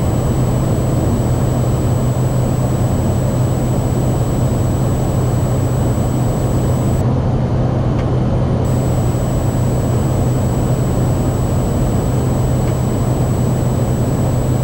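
Steady low drone of a Cessna 208 Caravan's PT6A turboprop engine and propeller, heard inside the cockpit, with a faint steady high whine over it.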